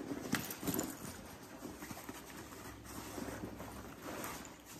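Hands rummaging in a nylon tactical backpack's front pocket: fabric rustling and shuffling, with a few light clicks and knocks from items inside in the first second.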